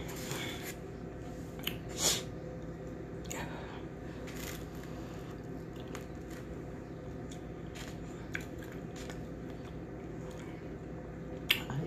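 Someone eating a plate of oxtails and rice: chewing, with scattered short clicks and scrapes of a fork on the plate, the loudest about two seconds in, over a steady low hum.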